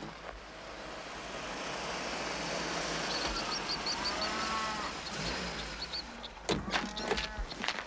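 A car rolling up a gravel drive and drawing to a stop, its tyre noise swelling over the first few seconds, with birds chirping. A few sharp clicks and knocks come near the end.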